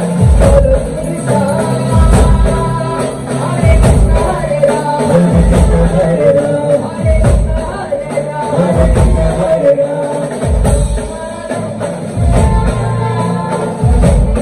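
A live band's music played loud through PA loudspeakers: a singer over drums and keyboards, with a deep bass hit about every second and a half to two seconds.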